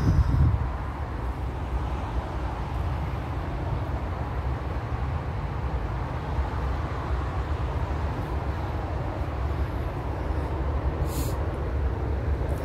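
Steady rumble of road traffic on the nearby A1 dual carriageway, a continuous low hum with no single vehicle standing out. A brief high hiss sounds near the end.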